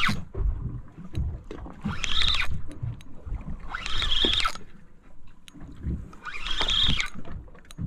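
Water slapping and swishing against the side of a drifting boat's hull, a swish every two seconds or so, over a low rumble of wind on the microphone.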